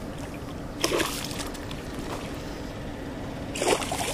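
A hooked northern pike splashing in shallow water at the bank, two short splashes about three seconds apart over a steady background of water noise.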